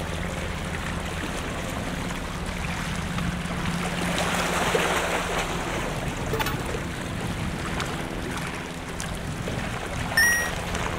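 Sea water sloshing and washing against a seawall over a low steady hum, swelling briefly near the middle. About ten seconds in, a short, loud, high beep.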